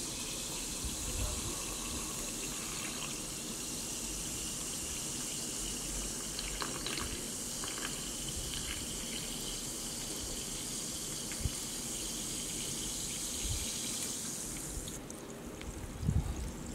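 Sparkling water poured in a steady stream into a glass of fruit slices, splashing and fizzing. The pour stops near the end, followed by a few soft knocks.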